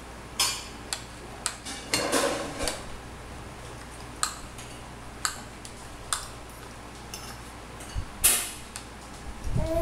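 A spoon clinking and scraping against a bowl: scattered sharp clinks at uneven gaps, with a longer scrape about two seconds in and the loudest clink near the end.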